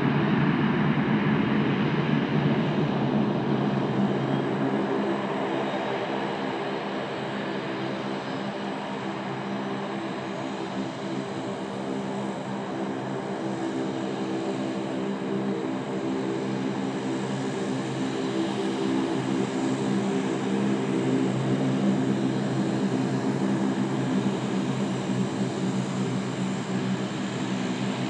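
The four Allison T56 turboprop engines of an RCAF CC-130H Hercules running on the ground, a steady propeller drone made of many layered tones with a thin whine above. It eases slightly in level a few seconds in and builds again later.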